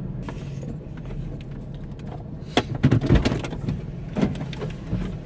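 Car engine idling, heard from inside the cabin as a steady low hum. A cluster of clicks and knocks comes about two and a half seconds in, with single knocks later, from the driver shifting about in his seat.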